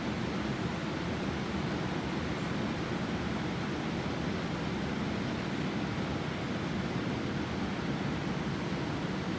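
Steady rushing of flowing river water, an even low-pitched wash with no breaks.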